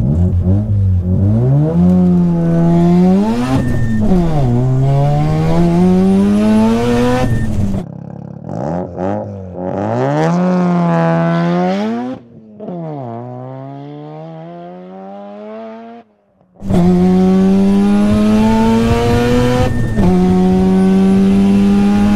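Tuned Mazda RX7 FD's single-turbo rotary engine at full throttle through a quarter-mile run, its pitch climbing through each gear and dropping back at each upshift. Partway through, the note is heard from beside the track, rising and then falling away as the car pulls off, before it returns to a loud, steadily rising note in a high gear.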